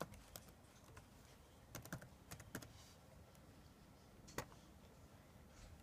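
Faint tapping of computer keyboard keys in a few short runs, with one sharper, louder click about four and a half seconds in.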